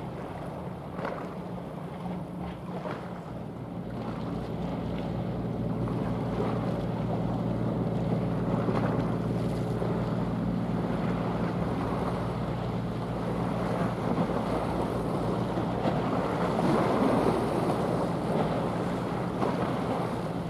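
Low, steady engine drone of a passing general cargo ship and a tugboat running alongside it, growing louder through the middle and easing near the end, over the wash of water and wind on the microphone.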